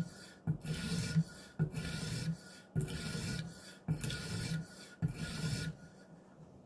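Maxamet steel knife blade being stroked across a diamond sharpening stone: a rhythmic rasping scrape, about one stroke a second, stopping near the end.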